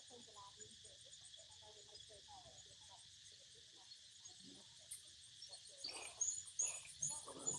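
Steady high-pitched drone of insects. Near the end come several close rustles and knocks at the microphone, mixed with a few short high chirps, as a macaque reaches at the phone.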